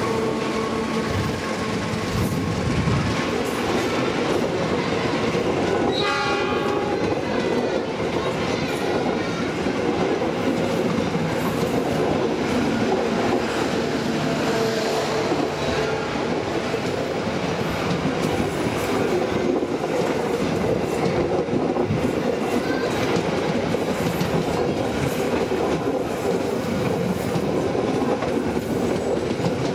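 Stainless-steel passenger coaches of a locomotive-hauled train rolling past close by, a steady rush of wheel and rail noise. A train horn sounds briefly about six seconds in.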